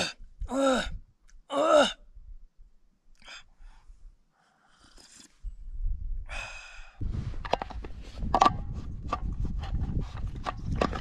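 A man's voiced 'ahh' sighs, three in the first two seconds, as he drinks something hot from a thermos cup. From about seven seconds in, a steady low rumble of wind on the microphone, with many sharp clicks as the plastic thermos and its cup are handled.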